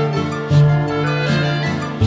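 Instrumental background music, with a low bass line under higher notes that change every fraction of a second.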